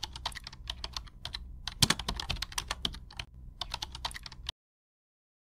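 Rapid computer-keyboard typing clicks, a typing sound effect over the title text, on a low steady hum. The clicks cut off suddenly about four and a half seconds in.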